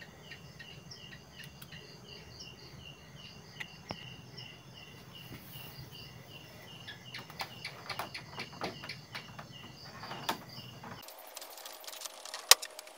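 A cricket chirping in a quick, regular rhythm, then scattered clicks and knocks of hands handling the TV's plastic back cover, with one sharp click near the end.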